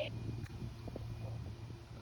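Low steady outdoor hum with a few faint ticks, in a pause in a RealCare infant simulator's stop-start crying, the pattern that signals it needs burping.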